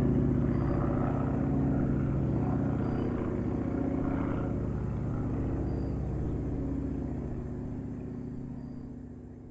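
Small propeller airplane's engine running at a steady pitch and fading gradually away.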